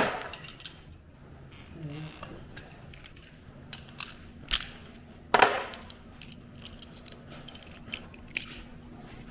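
Hand tools and metal parts handled at work, with scattered sharp clinks and knocks, the loudest about five and a half seconds in.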